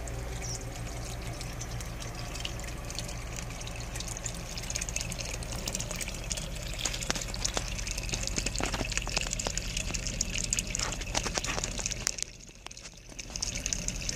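Water trickling steadily over a low, steady hum, with many scattered sharp clicks in the second half; the water sound briefly drops away near the end.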